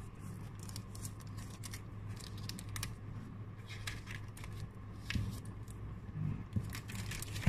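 Match Attax trading cards and plastic binder sleeves being handled: scattered soft rustles, scrapes and clicks over a steady low hum.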